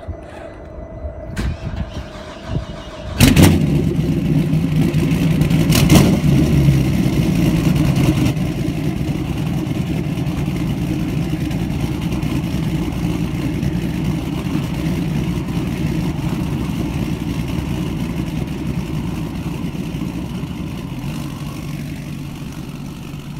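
An engine starts about three seconds in, gives a second loud burst at about six seconds, then runs steadily, easing off slightly near the end.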